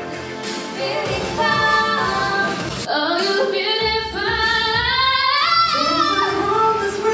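Music with a woman singing a melody. Her line climbs in pitch in the middle, then drops back.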